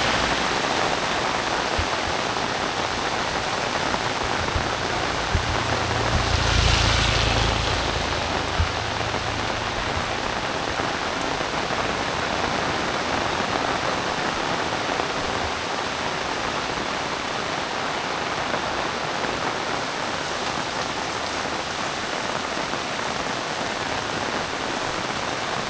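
Heavy rain pouring steadily. About six seconds in it swells louder for a second or two with a low rumble, and a few single drips or knocks sound over the downpour.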